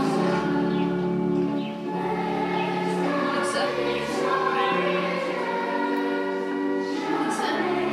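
A choir singing in slow, held notes, the chord changing about once a second.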